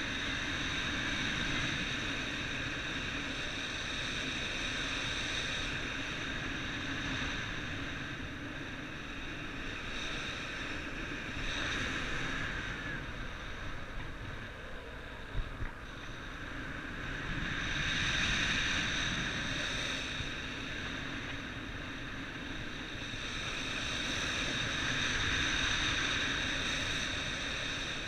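Wind blowing in gusts that swell and ease every several seconds, with a thin high whistle over a low rumble.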